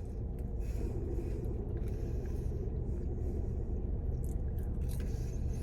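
Steady low rumble of a car cabin, with a few faint eating sounds: bites and chewing.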